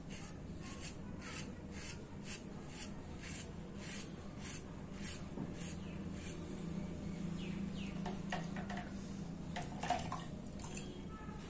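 Gillette 7 o'clock safety razor with a Topaz Platinum blade scraping through lathered stubble in short, quick strokes, about two a second, for the first six seconds or so. After that come a few scattered scrapes and a sharper knock about ten seconds in.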